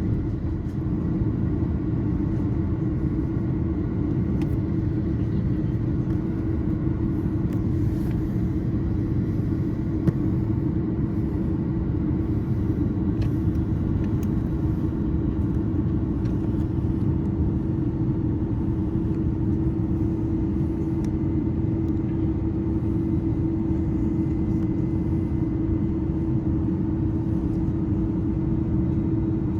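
Steady cabin noise inside an Airbus A330-300 airliner: a constant rumble with a steady low hum from the engines and airflow. There is a single faint click about ten seconds in.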